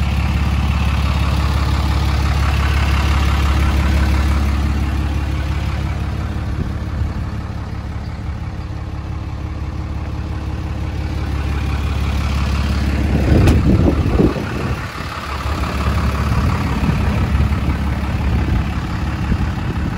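Dodge Ram 2500's 6.7-litre Cummins inline-six turbodiesel idling steadily with a low, even hum. A brief louder knock and rumble comes about two-thirds through.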